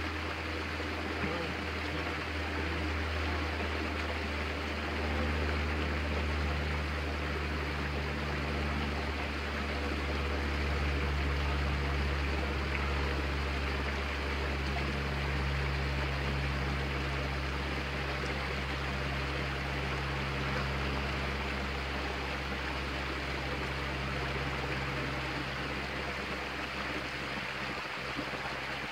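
Steady outdoor background noise: an even rushing sound with a low hum underneath, with no impacts.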